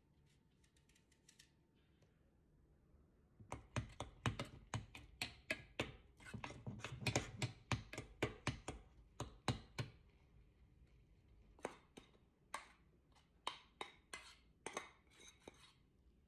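A metal utensil clicking and scraping against a stainless steel saucepan while stirring a dry, crumbly mixture: a quick run of clicks about three a second, then slower, scattered taps.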